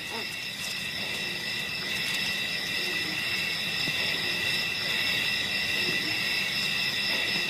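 Steady chorus of insects: several high, unbroken tones held together without a break.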